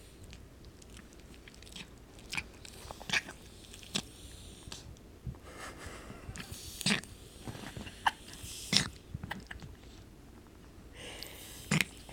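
Mixed-breed dog eating, chewing and crunching her food in irregular bites, with a few louder crunches and short breathy noises between them.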